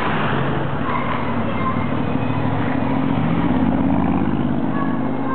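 Porsche Cayenne TechArt Magnum's engine running with a steady low note that swells a little about halfway through.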